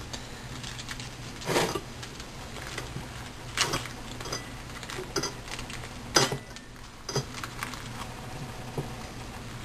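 Hands rolling a damp rice-paper wrap on a ceramic plate: scattered soft taps, rubs and rustles of fingers and wrap against the plate, over a low steady hum.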